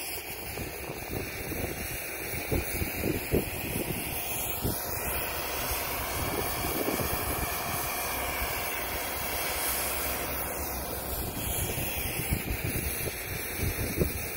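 Steady rushing hiss of outdoor wind, with low gusts buffeting the microphone now and then.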